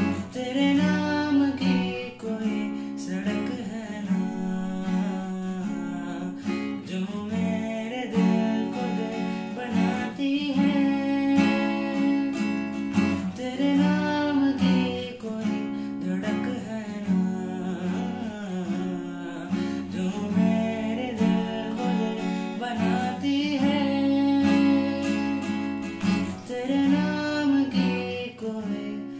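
A young man singing a slow Hindi song over his own strummed steel-string acoustic guitar, the chords ringing under a wavering sung melody.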